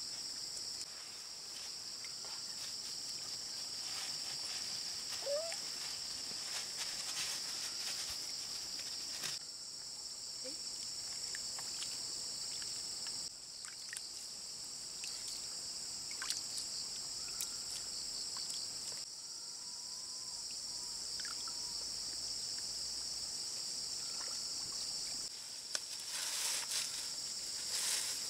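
Steady high-pitched chorus of insects, dipping briefly a few times, with scattered light clicks and a burst of rustling and knocks near the end.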